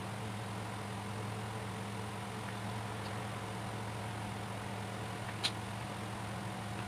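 Steady low machine hum, with one short sharp click about five and a half seconds in.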